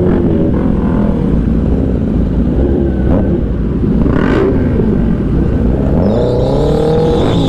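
Kawasaki ZX10R inline-four sport bike with a loud aftermarket exhaust running under way, its engine note rising and falling with the throttle over a steady low rumble, with a clear rise near the end.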